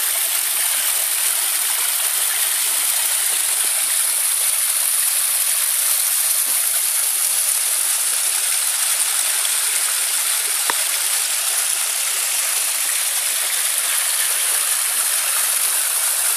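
Water spilling steadily down a small rock cascade into a garden pond, an even splashing with no pump or machinery noise heard over it.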